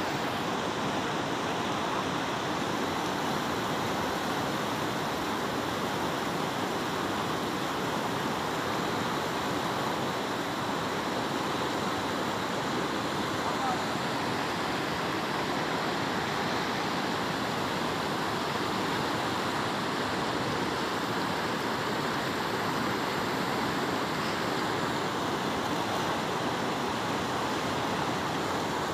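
Steady rush of a fast river running through rocky whitewater rapids.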